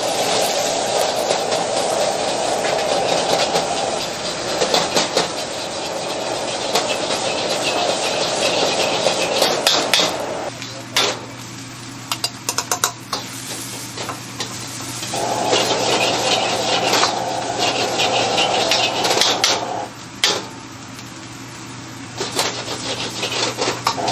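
Egg fried rice being stir-fried in a wok over a gas burner: a steady hiss of frying, with a metal ladle clanking and scraping against the wok, in a quick run of knocks about ten to fourteen seconds in. A low steady hum comes in about ten seconds in.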